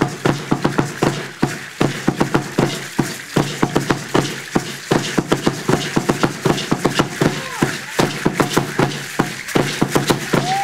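Aztec dance accompaniment: a drum beating a fast, steady beat, mixed with the dense clatter of seed-pod ankle rattles (ayoyotes) shaking with the dancers' stamping steps.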